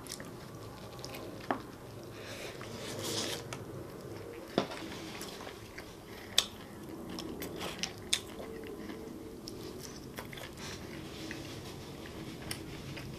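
A person chewing a bacon cheeseburger and fries close to the microphone, with mouth noises and a few short sharp clicks.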